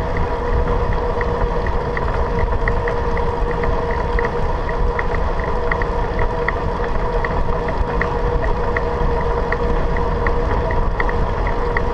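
Bicycle rolling steadily along a paved path: wind buffeting the microphone and tyre rumble, with a steady hum and a light tick repeating about three times a second.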